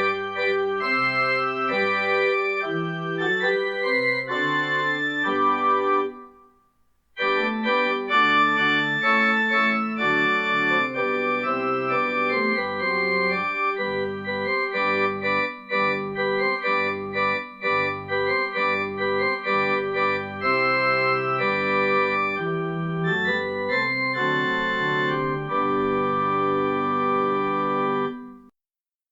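Church organ playing sustained chords over held bass notes, with a short break about six seconds in and a final chord that cuts off just before the end.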